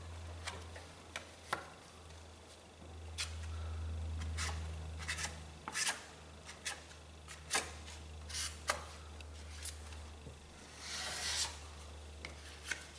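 Wide spreader scraping body filler across a car's rear quarter panel: scattered short scrapes and taps, with a longer scrape about eleven seconds in. A low steady hum runs underneath.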